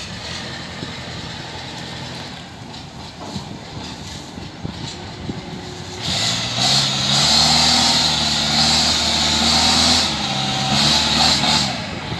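Kubota DC70 combine harvester's diesel engine running steadily. About six seconds in it gets louder, with a higher engine note and a strong hiss, and it drops back just before the end.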